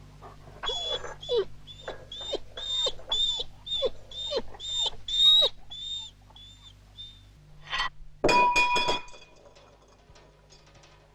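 A dog whimpering in a run of about a dozen short, high whines, then a single sharp clang that rings on briefly, over a low steady hum.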